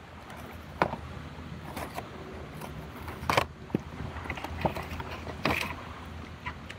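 A cardboard air-filter box being pulled open and the new filter in its plastic wrapping slid out: scattered crinkles, scrapes and taps of cardboard and plastic, the loudest rustle about three and a half seconds in.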